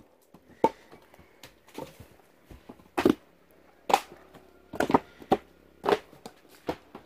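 Split firewood logs knocking against one another as they are handled: about eight irregular, sharp wooden clunks, some with a short hollow ring.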